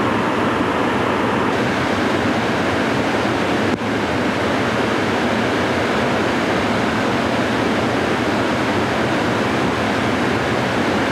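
Floodwater pouring over a dam, a loud, steady rush of water, with a brief dropout and click about four seconds in.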